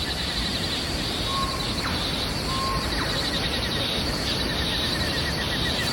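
Steady rush of a waterfall, with a high, rapidly pulsing trill over it and two short whistled notes in the first half.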